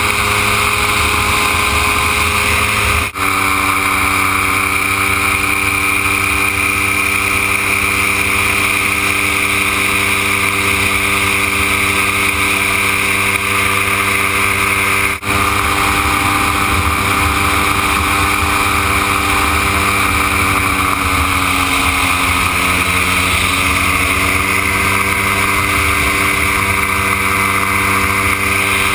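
Gyroplane engine and propeller running steadily in flight, heard from on board with wind rush. The pitch dips briefly and recovers about three quarters of the way through, and the sound drops out for an instant twice.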